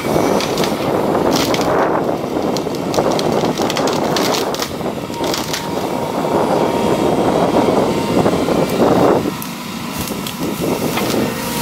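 Caterpillar 329E excavator running under hydraulic load as its Dymax HPX21 tree shear grips and cuts a standing tree trunk, with repeated sharp cracks and snaps. A faint steady whine joins in during the second half.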